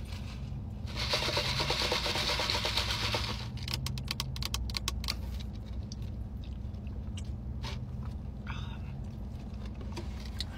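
Sipping an iced drink through a straw from a clear plastic cup: a loud, fluttering slurp lasting a couple of seconds starting about a second in, then a run of quick clicks and scattered small taps of ice and plastic. A steady low hum runs underneath.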